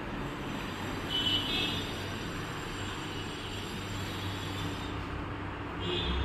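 Steady background noise of road traffic with a low hum, and two short high-pitched sounds, about a second in and near the end.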